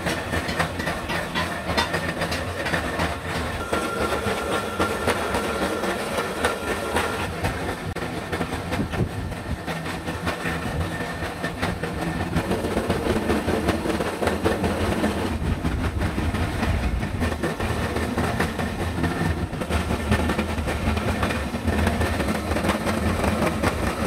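Drill press running with its cutter chattering against the steel shell of a hermetic refrigerator compressor, cutting the shell open along its seam. A steady, dense rattle of metal on metal.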